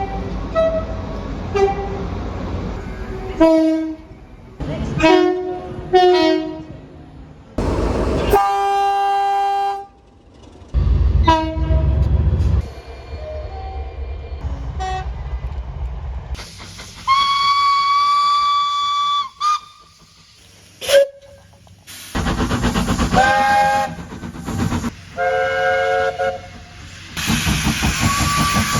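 A run of different train horns, one after another: short toots, several longer chords and one long single-note blast, each cut off abruptly as the next begins, with the rumble of moving trains beneath some of them.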